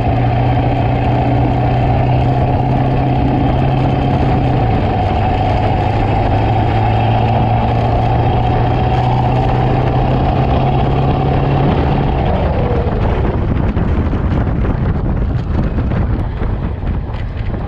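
7.3 Powerstroke V8 diesel with a 3-inch straight pipe running as the truck drives, a steady drone that steps down slightly about five seconds in. About twelve seconds in the engine note falls away, leaving tyre and wind noise.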